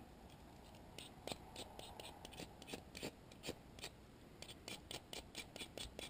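The spine of a Swiss Army knife's saw blade scraped again and again down a Firefly ferrocerium fire-steel rod, striking sparks: a run of faint, short scrapes, about three or four a second, with a short pause near the middle.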